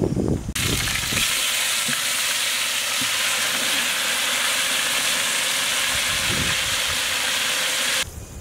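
Marinated goat legs in hot oil with fried onions in a large cooking pot, sizzling loudly and steadily. The sizzle starts about half a second in and cuts off sharply near the end.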